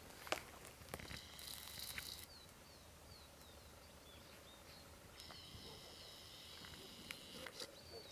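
A camcorder's zoom motor whining steadily and high-pitched, for about a second starting a second in, then again from about five seconds in until near the end, as the lens zooms in and back out. Between the two whines come a few faint, short, falling chirps. A single sharp tap comes just after the start.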